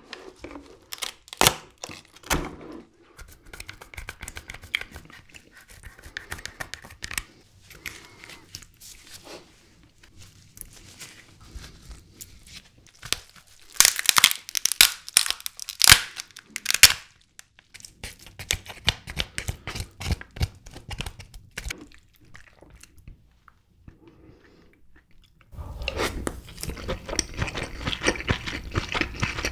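Gloved hands tearing and crushing the cooked body of a king crab, its shell and cartilage crackling and snapping, with a loud run of sharp cracks about halfway through. Near the end the cracking gives way to dense, wet, close-miked chewing.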